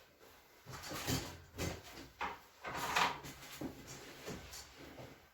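A person rolling over onto their back on a padded treatment table: a string of irregular rustles and knocks from the body and the table.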